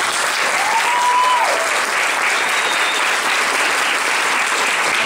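Small audience clapping steadily.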